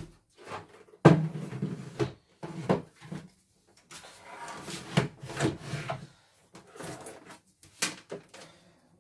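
A CNY E900 embroidery machine being handled on a wooden workbench: irregular knocks, clicks and rubbing as its plastic parts are slid and fitted.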